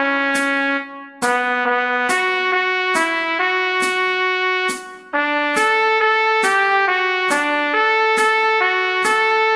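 Trumpet playing a pop vocal melody as a steady line of legato notes over a sharp click on every beat, a little more than one click a second. The line breaks briefly twice, about a second in and about five seconds in.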